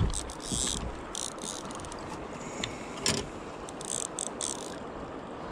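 Fly reel's click-and-pawl drag ratcheting in several short spurts as a hooked fish is played in for landing.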